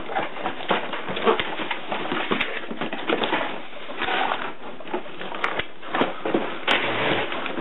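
Cardboard box and plastic packaging being cut with scissors and pulled open by hand: continuous crackling rustle with many small sharp clicks and snaps.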